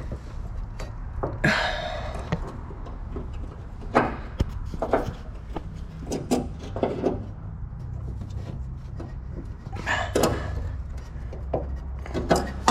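Scattered knocks, clinks and scrapes of hand tools and metal suspension parts being handled, over a low steady hum.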